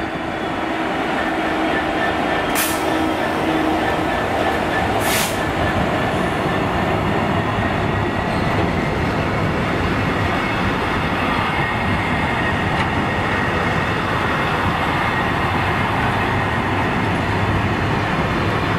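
A GB Railfreight Class 66 diesel-electric locomotive with its EMD two-stroke engine runs close by, its engine note audible for the first few seconds. It is followed by the steady rumble and clatter of a long rake of freight wagons rolling past on the rails, with two brief high hisses about two and a half seconds apart near the start.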